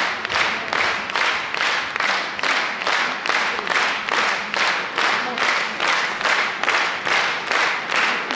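Concert hall audience applauding in unison, a steady rhythmic clap about two and a half times a second.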